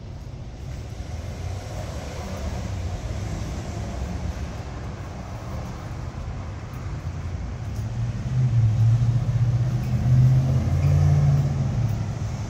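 Low engine rumble of an unseen heavy motor vehicle over steady street traffic noise, growing louder about eight seconds in, holding for a few seconds, then easing off as it passes.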